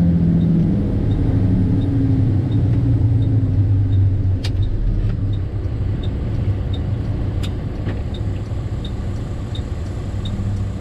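Tandem dump truck's diesel engine heard from inside the cab while driving, its pitch falling over the first couple of seconds and then running steady and low. A faint regular tick about twice a second sounds throughout, with two sharp clicks around the middle.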